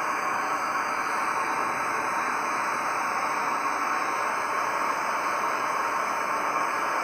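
FireMaple X3 gas canister stove burning at full, a steady even hiss from the burner, with half a litre of water boiling in the pot on top.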